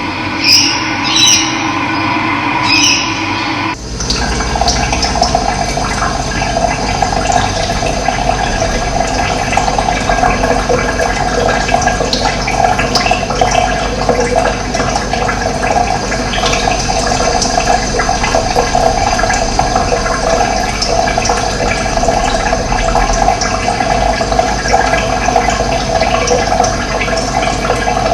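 Running water rushing steadily. About four seconds in, the sound changes abruptly to a fuller, steadier rush.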